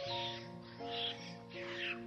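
Background music of sustained, slowly changing notes, with three short high-pitched animal squeaks over it, the last one sliding downward near the end.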